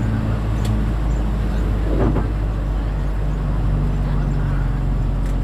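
Motor vehicle on the move: a steady engine drone and low road rumble, with a brief louder whoosh about two seconds in.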